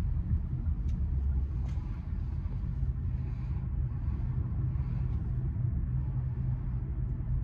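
Steady low road and engine rumble heard inside the cabin of a moving taxi.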